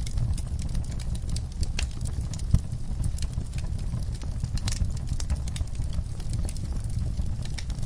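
Log fire crackling: irregular sharp pops and snaps over a steady low rumble of the flames.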